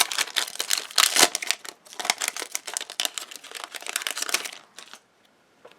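Plastic Yu-Gi-Oh booster pack wrapper crinkling and rustling as the pack is opened and the cards are handled. It is a thick run of crackles that thins out and stops about five seconds in.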